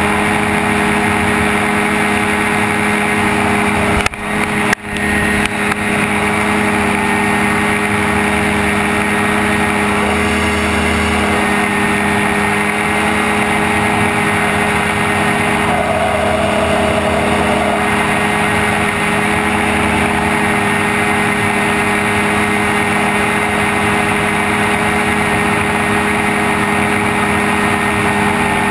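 Open-frame gyrocopter's engine running steadily in flight, a loud even drone with a rush of air over it. The level dips sharply twice, about four to five seconds in.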